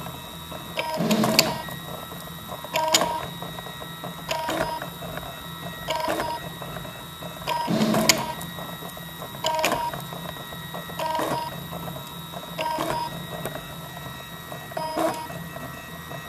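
RapMan 3D printer's extruder drive, a stepper motor turning the original clear plastic gears, running with a steady whine and a clattering burst about every second and a half: the gears' intermittent "klack-klack".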